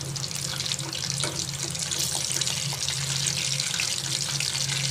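Mutton kola urundai deep-frying in hot oil: a steady, dense sizzle with small crackles.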